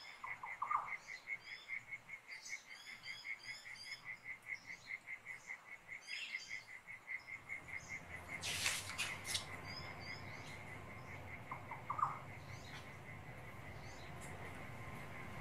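Recorded Australian bush ambience: birds calling and twittering over a steady chirping that pulses about four or five times a second, which the recordist calls crickets. A sharp, loud burst of sound cuts through about eight and a half seconds in.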